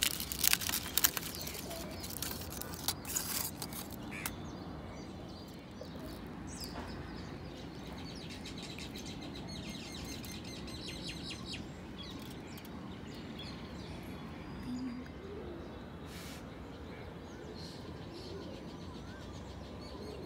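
Aluminium foil crinkling and crackling as it is peeled off a kulfi pot in the first few seconds. After that, small birds chirp faintly in the background.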